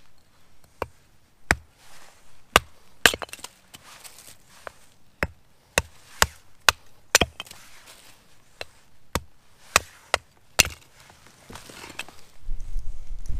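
Penobscot Bay kindling axe splitting firewood into kindling on a wooden chopping block: about fourteen sharp chops into wood at an uneven pace of roughly one a second, with a low rumble near the end.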